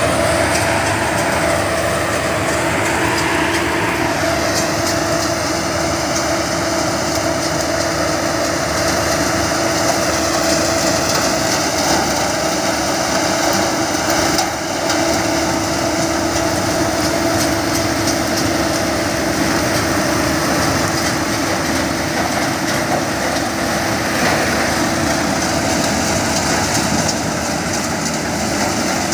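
Case IH sugarcane harvester cutting standing cane, with the tractor running alongside it: a steady engine drone with a constant hum.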